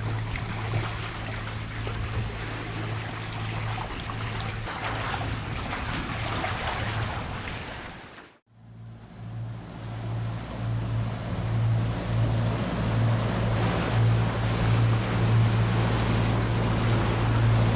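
Sea water washing and wind rushing past a catamaran under way, over a steady low hum. The sound fades out briefly just past halfway, then comes back a little louder.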